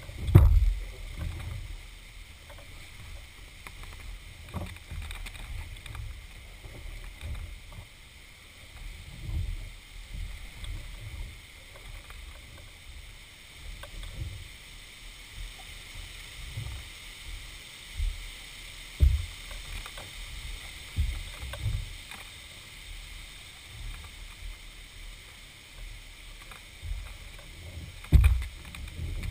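A canoe being paddled through still floodwater: irregular swishing paddle strokes with a few sharp knocks, the loudest just after the start and near the end.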